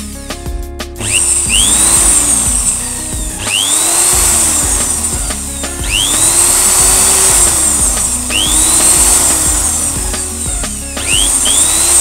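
Background music with a sweeping sound that repeats every couple of seconds, over a small electric drill boring holes into hard plastic.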